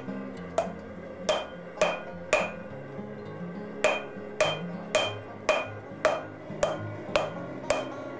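Hand hammer striking red-hot leaf-spring steel on an anvil while forging it: about a dozen blows at roughly two a second, each with a short metallic ring, with a pause of about a second and a half a third of the way in.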